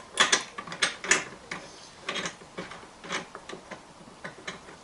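Metal clicks and clinks from a lathe chuck being adjusted, the jaws being worked and set to about 55 mm. The clicks come irregularly, loudest and closest together in the first second or so, then sparser and fainter.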